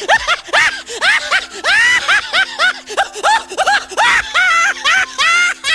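High-pitched cartoon-style laughter, a rapid run of short rising-and-falling "ha" sounds, over background music.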